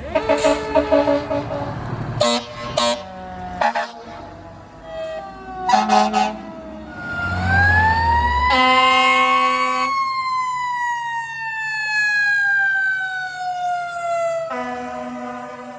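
Fire truck air horns sounding in a run of short blasts over the first six seconds. Then a siren rises in pitch and slowly falls again, with an air horn held over it for a couple of seconds and again near the end.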